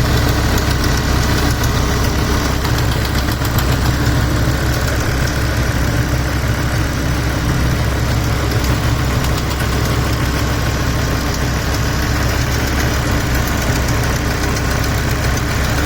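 BMW S85 V10 engine idling steadily, with a fast, even ticking over the running. The tick shows when the engine is warm and has not been cured by fresh oil.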